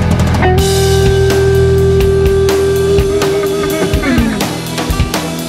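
Rock music: a long held guitar note that bends downward about four seconds in, over a sustained bass, then drum hits.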